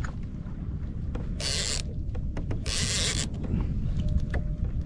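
Fishing reel's line-out clicker buzzing in two short bursts, about a second and a half in and again around three seconds, as a hooked fish pulls line off the reel. Low wind rumble on the microphone throughout.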